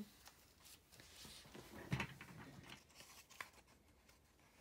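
Quiet room with faint rustling and a few soft clicks, and a short thump about two seconds in.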